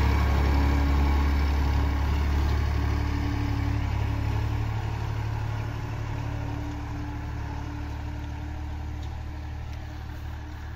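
Farmtrac 35 tractor's diesel engine running steadily under load as it pulls a seed drill away, growing gradually fainter.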